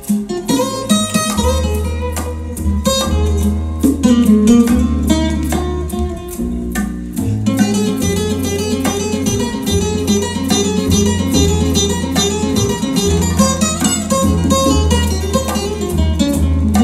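Instrumental passage of a record, plucked guitar over a steady bass line and no vocals, played from vinyl on an EMT 930 turntable with an Ortofon SPU Classic GM MkII cartridge and heard through large floor-standing loudspeakers in the room.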